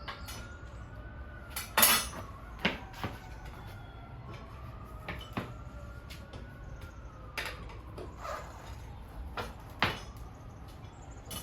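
Steel tire irons clinking and knocking against a dirt bike wheel rim as the tire bead is levered on over the rim, in scattered sharp metallic clanks, the loudest about two seconds in.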